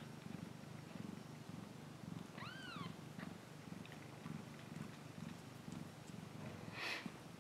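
Maine coon mother cat purring steadily, a low pulsing rumble, as her kittens nurse. About two and a half seconds in, a kitten gives one short mew that rises and falls, and near the end there is a brief burst of noise.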